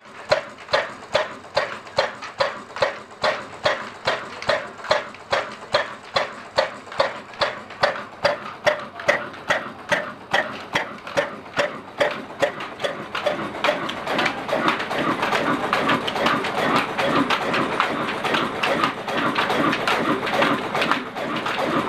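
Old Ruston Hornsby-type diesel engine running under load on a chakki flour mill. Its exhaust pipe gives even puffs a little over two a second, and about 14 s in these give way to the denser, steady clatter of the engine and flywheel heard close up.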